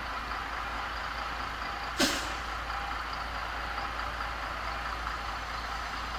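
Steady drone of running machinery, with one sharp knock about two seconds in.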